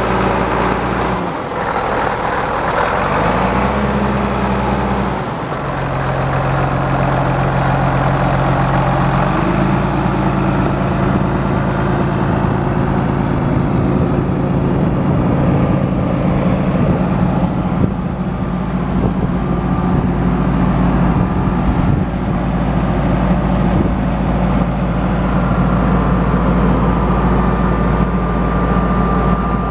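John Deere 8400 tractor's six-cylinder diesel engine running at a steady speed, its pitch shifting a few times in the first ten seconds and then holding steady.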